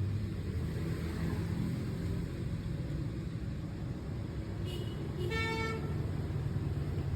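Steady low rumble of passing road traffic, with one short vehicle horn honk a little after five seconds in.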